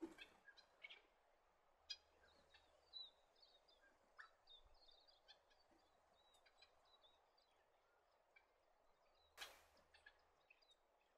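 Double-barred finches calling faintly: many short, high chirps scattered through, with a louder sharp burst about nine and a half seconds in.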